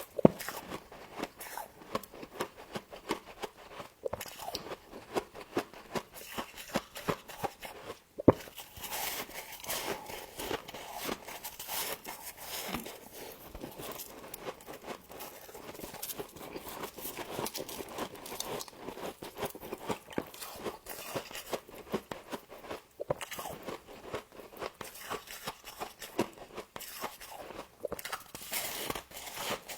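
Close-up crunching and chewing of humidifier-grown frost, a continuous stream of small crackly crunches with two sharper, louder crunches, one just after the start and one about eight seconds in.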